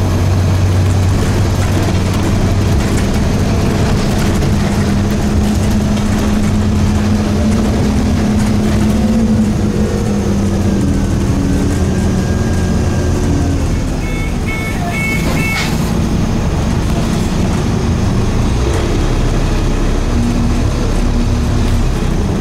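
Scania N230UD double-decker bus's five-cylinder diesel engine running under way, its pitch shifting and gliding as it goes through the gears. There are a few short high beeps around the middle.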